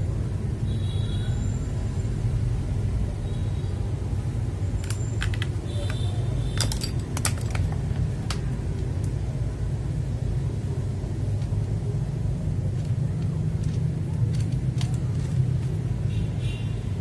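Small hard clicks and light knocks of the plastic parts of a switch lube station being handled while its last foot is fitted, clustered about 5 to 8 seconds in, over a steady low background rumble.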